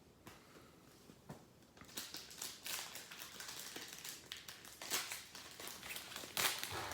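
Crinkling and rustling of a foil trading card pack wrapper being handled and opened, starting about two seconds in.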